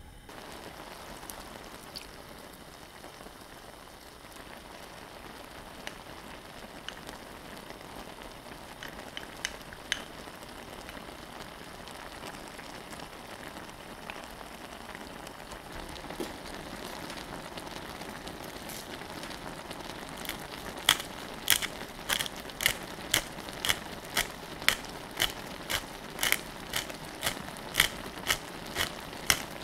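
Braised pollack simmering in a pot, a steady sizzling bubble throughout. In the last third there is a run of sharp, evenly spaced clicks, about one and a half a second, as a pepper grinder is twisted over the pot.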